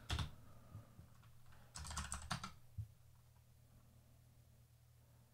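Computer keyboard typing, faint: a couple of key clicks at the start, a quick run of keystrokes about two seconds in and one more shortly after, then near silence.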